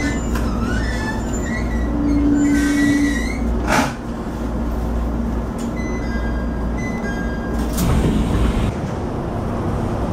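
Inside an E127 series electric train running: steady low rumble with scattered high-pitched wheel squeal and two sharp knocks, about four seconds apart.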